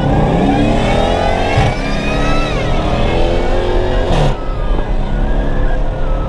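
Straight-piped 2015 Dodge Charger R/T's HEMI V8 accelerating hard, heard from inside the cabin. The revs climb and drop back twice as it shifts up.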